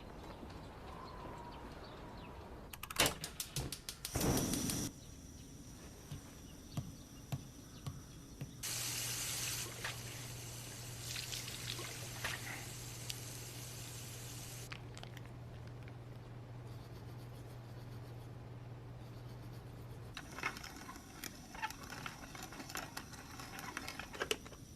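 Water running from a tap for several seconds, with a low steady hum that starts with it and carries on after the water stops, among scattered small clicks and knocks of handling.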